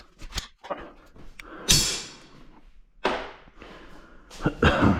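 Clanks and knocks of metal tools and parts being handled, several sharp hits, one about two seconds in that rings briefly.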